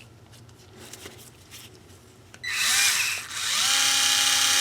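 Worx WX240L 4 V cordless screwdriver's electric motor spinning with no load on the low setting. It gives a short run about two and a half seconds in, stops, then starts again and runs steadily, its whine rising in pitch at each start.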